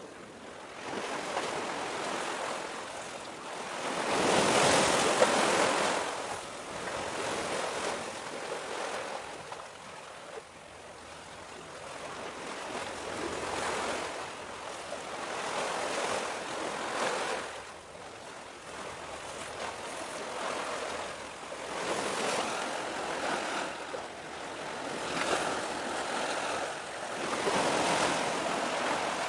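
Waves of the sea surging and washing, a rushing noise that swells and fades every few seconds and is loudest about four to six seconds in.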